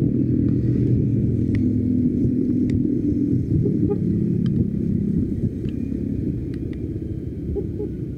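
Motorcycle engine running with a steady low rumble that slowly eases off, along with a few faint ticks.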